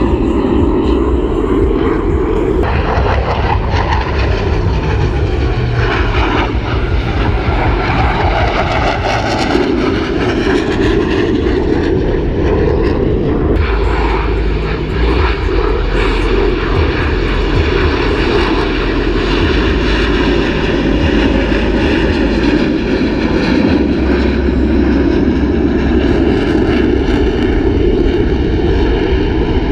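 Blue Angels F/A-18 Hornet jets flying past in formation: a loud, continuous jet-engine roar whose pitch bands sweep up and down as the planes pass.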